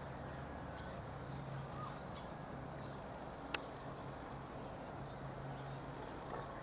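Faint outdoor garden ambience with a steady low hum, broken by a single sharp click about halfway through.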